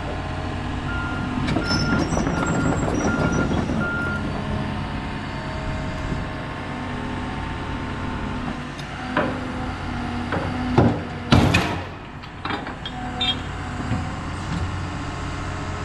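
Diesel heavy equipment running steadily, with its backup alarm beeping about five times early on. Several sharp metallic knocks follow, the loudest about two thirds of the way through.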